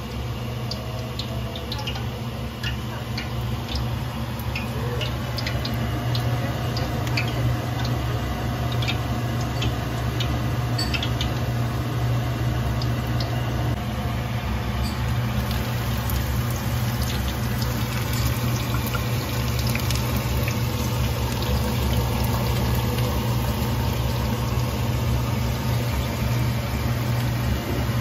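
A few pieces of chopped shallot deep-frying in hot oil in a steel wok, sizzling with scattered small pops, over a steady low hum. The sizzle grows denser about halfway through.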